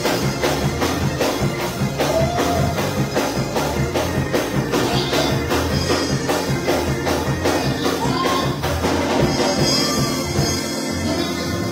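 Church band music: keyboard and drum kit playing with a steady beat of sharp high percussion strokes, about four a second, and some singing over it. The beat stops about ten seconds in.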